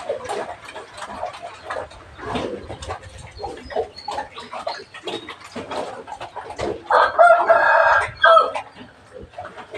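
A rooster crowing: one long pitched call about seven seconds in, the loudest sound, over a background of scattered short knocks and clatter.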